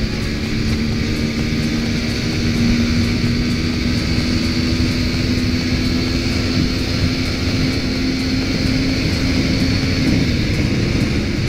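Honda CBR125's small single-cylinder four-stroke engine running steadily at high speed, its note rising slightly a couple of seconds in and easing near the end, under heavy wind rumble on the microphone.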